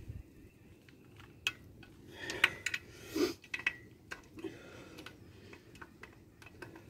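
Irregular metallic clicks and taps of a wrench and socket working on the small cylinder-head bolts of a Jeep 3.7 V6 engine, a few seconds apart.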